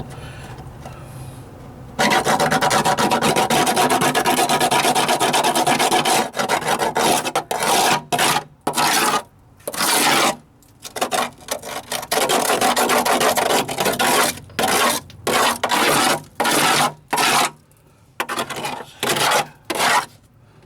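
A hand tool scraping back and forth on a rusted steel floor pan, marking a patch outline more visibly. There is one long continuous scrape, then many short quick strokes.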